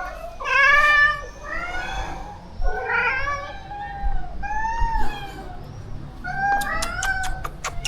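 Cats meowing repeatedly, a string of pitched, arching meows one after another, as they call for food at feeding time. Near the end comes a quick run of sharp clicks.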